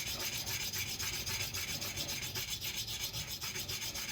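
Oil stone rubbed quickly back and forth along a splitting axe's steel edge, in even scraping strokes about five a second, honing a smooth finish onto an edge freshly ground with an angle grinder.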